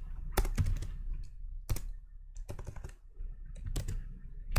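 Computer keyboard keystrokes: separate key clicks typed in an irregular scatter, a few close together and then a pause, as a line of code is entered.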